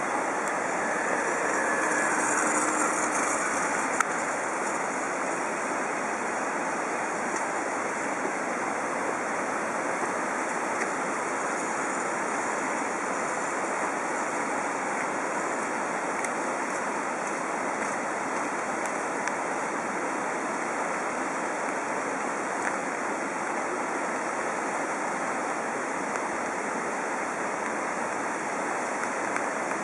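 A steady rushing noise with a few faint clicks.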